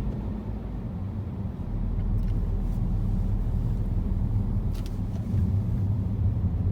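Steady low rumble of vehicle noise, with a few faint clicks.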